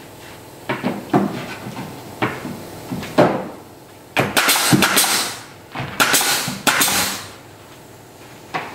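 Pneumatic nail gun on an air hose driving nails into timber cladding boards: a few separate knocks in the first three seconds, then two quick bursts of several shots, about four and six seconds in.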